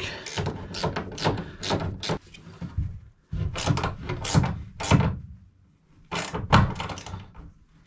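Ratcheting wrench clicking in short quick runs as it tightens the bolt of a tie-down anchor in a pickup truck bed, in about three spells with brief pauses between.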